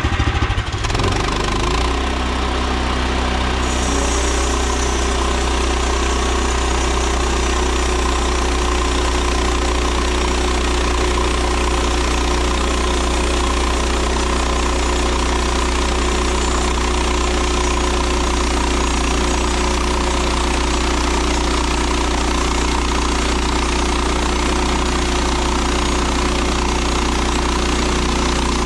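Engine of a Woodland Mills portable band sawmill running steadily under load while a new Wood-Mizer SilverTip band blade cuts through a red oak log. A high hiss of sawing joins about four seconds in and carries on.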